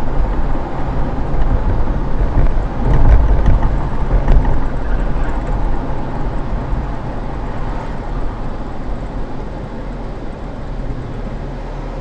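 Steady rumble of a car driving, road and engine noise heard from a dashboard camera inside the car, louder for a second or two about three seconds in.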